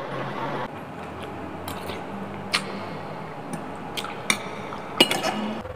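Metal spoon and fork clinking and scraping against a glass bowl of noodles, a few sharp clinks spread out over soft, wet chewing sounds.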